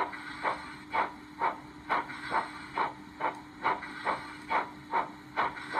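Stanier 8F steam locomotive exhaust chuffs from a Locoman DCC sound project, played through a small iPhone-type speaker in a Hornby OO model's tender. The chuffs come steadily at about two a second, as at a slow steady running speed, over a faint steady hum.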